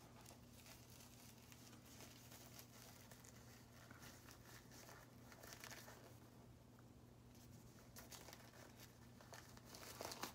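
Faint crinkling and rubbing of a sterile glove as it is pulled on and worked over the wrist, over a steady low hum.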